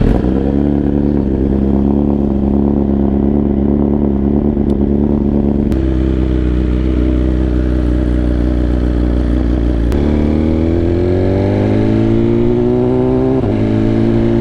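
BMW S1000RR inline-four motorcycle engine pulling under way, ridden from the bike. About two-thirds of the way in the engine note drops sharply with an upshift, then climbs steadily as it accelerates, with another shift near the end.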